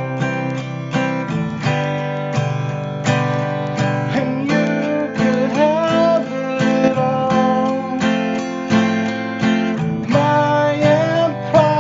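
Music: strummed acoustic guitar chords with a melody line that glides in pitch above them.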